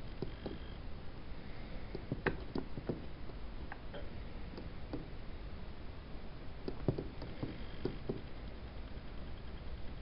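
Scattered small clicks as the push button on an electronic dice circuit board is pressed, over a steady low background hum.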